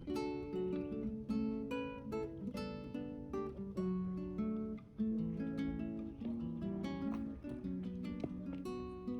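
Background music: acoustic guitar picked and strummed in a steady run of notes.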